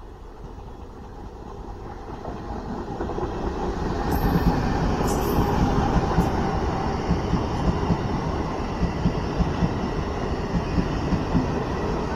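Indian Railways passenger train's coaches rolling past on the track. The rumble builds as the train draws near over the first four seconds, then holds steady with a regular clack of wheels over rail joints. Two brief high squeaks come about four and five seconds in.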